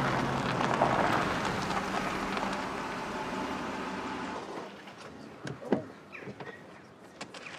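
A car driving slowly up and pulling in, its engine and tyres making a steady noise that fades out about four and a half seconds in; a few faint clicks follow.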